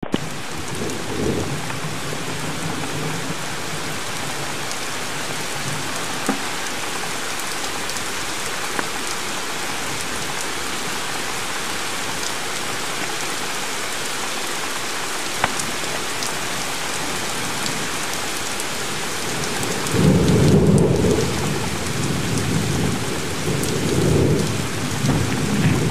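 Steady rain from a spring thunderstorm, with a few sharp drops ticking on a surface. Thunder rumbles low about a second in, then rolls in louder about three quarters of the way through and swells again near the end.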